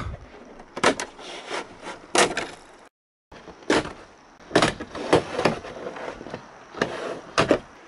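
Plastic trim pieces on a motorhome roof-hatch frame being worked loose by hand: a series of sharp plastic clicks and knocks, some in quick pairs, with a short dropout about three seconds in.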